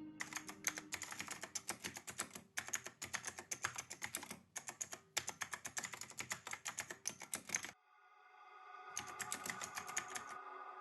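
Rapid typing on a computer keyboard, in several quick runs separated by short pauses. It stops for about a second, then a final short burst comes near the end.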